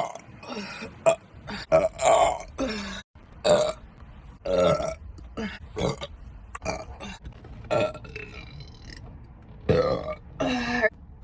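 A person burping over and over: a fast string of short, loud burps, about two a second, some cut off abruptly, with a longer drawn-out burp near the end.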